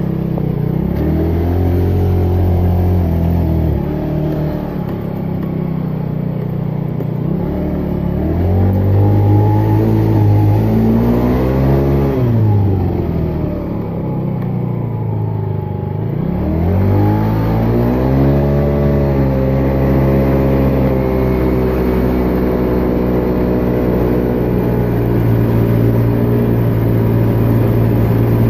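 Moped engine fitted with a big bore kit, running a little louder than normal. Its pitch rises and falls with the throttle, dipping low about halfway through, then climbs again and holds steady for the last several seconds.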